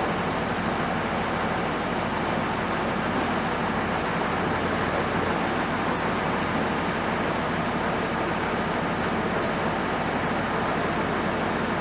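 Steady, even rumble of running machinery and traffic, with no distinct knocks or changes.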